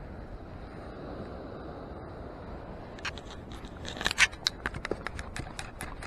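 Beach sand scoop digging and being shaken to sift the sand, starting about three seconds in: scraping, then quick rattling clicks at about five or six a second.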